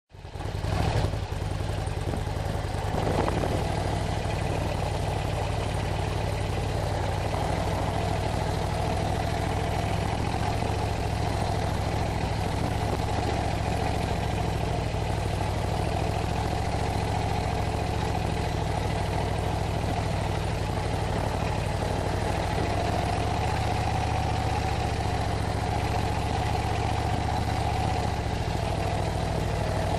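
Harley-Davidson touring motorcycle's V-twin engine running steadily at low revs on a dirt forest track, heard from a camera on the bike, its pitch rising slightly about two-thirds of the way through.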